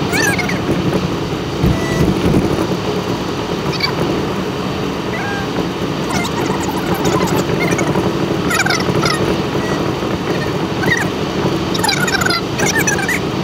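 Steady road and engine noise inside a moving car, with a dog whimpering in short high whines a few times: near the start, around the middle and near the end.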